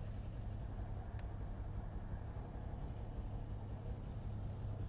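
Steady low rumble of an idling engine, with no change in speed.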